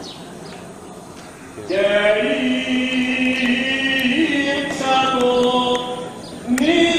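Greek Orthodox liturgical chanting: voices holding long sustained notes that step slowly in pitch. A short lull at the start, then the chant comes back in loudly about two seconds in, with a fresh rising entry near the end.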